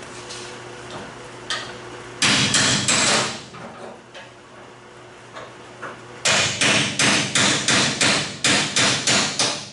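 Hammer blows on the sheet steel of a pickup bed's wheel well: a quick run of sharp, ringing strikes about two seconds in, a few lighter knocks, then a steady series of blows, nearly four a second, from about six seconds in.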